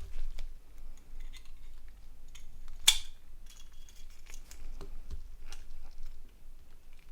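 Small plastic parts of a Nokia 5610 XpressMusic phone being handled and fitted together during reassembly: scattered light clicks and taps, with one sharper click about three seconds in.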